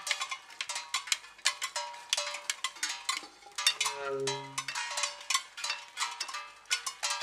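Dense, irregular clanking of small metal bells, each strike ringing briefly, with a short low held tone about four seconds in.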